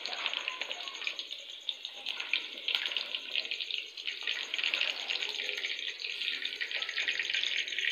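Raw chicken pieces sizzling and crackling in hot ghee in a steel pot, at the start of frying.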